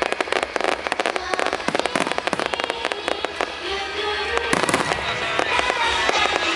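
Fireworks crackling in a rapid, dense stream of pops. Music comes in over loudspeakers about halfway through, with a louder burst about four and a half seconds in.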